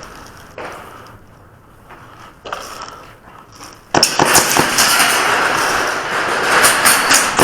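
Airsoft guns firing in rapid automatic bursts, starting suddenly about four seconds in after a few faint clicks: an exchange of fire that ends with both players hit.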